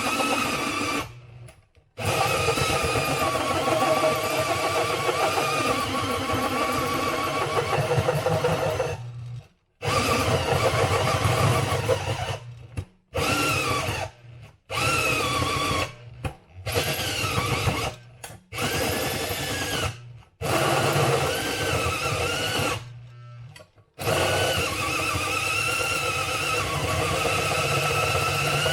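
Electric drill drilling, started and stopped in a series of runs of one to several seconds, its motor pitch wavering as it works under load.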